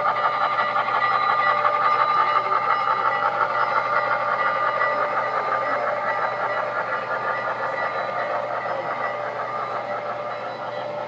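O-gauge three-rail model train, led by a smoke-puffing steam locomotive, running along the layout track, its sound fading gradually as it moves away.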